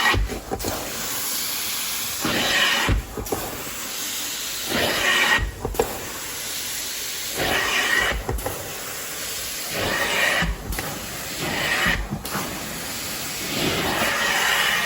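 Carpet-cleaning extraction wand: a steady rushing hiss of suction and spray, rising in brightness during each pass and broken by a short dip about every two to three seconds as each stroke ends.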